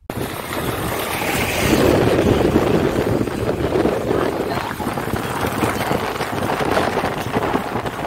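Car driving on a wet road in the rain: steady rushing wind noise on the microphone mixed with tyre noise from the wet surface.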